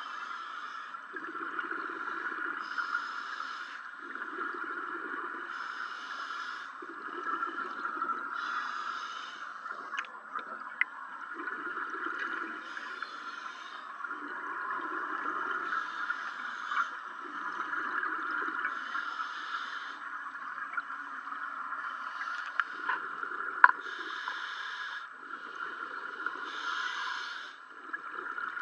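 A scuba diver breathing through a regulator underwater, about once every three seconds: a hiss on each inhale, then a low bubbling rush on each exhale. A steady hum runs underneath throughout.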